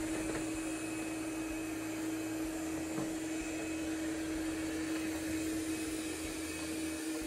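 erabros LS1 robot vacuum running steadily, its suction motor giving an even whirring hum with one constant tone.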